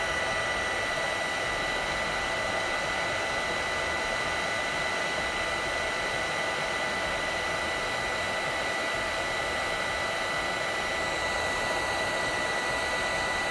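Handheld electric heat gun running steadily, a constant rush of hot air with a thin steady whine over it, blowing onto solder wire to melt it.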